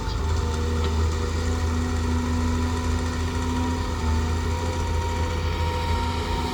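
Excavator's diesel engine running with a steady low drone and a few held humming tones above it.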